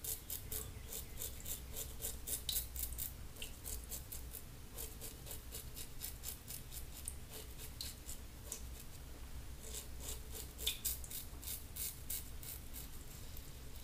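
Frank Shaving double-edge safety razor scraping stubble on the neck and jaw in runs of short strokes, each a quick crisp rasp. It is a touch-up pass over skin left wet and slippery rather than re-lathered.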